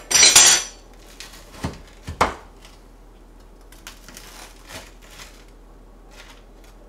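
A kitchen knife cutting through a breaded pork cutlet (tonkatsu) on a plastic cutting board. There is one loud cut at the start, then two sharp knocks of the blade on the board around two seconds in, and a few lighter cuts after.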